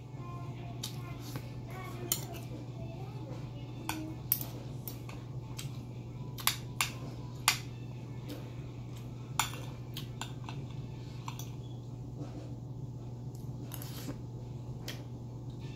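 Metal spoon and fork clinking and scraping against ceramic plates during a meal, with scattered sharp clinks, a few louder ones in the first ten seconds. A steady low hum runs underneath.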